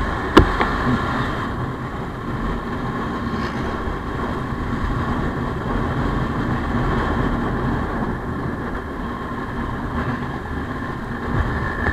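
Motorcycle riding along at a steady pace, its engine and road noise running evenly, with one sharp click about half a second in.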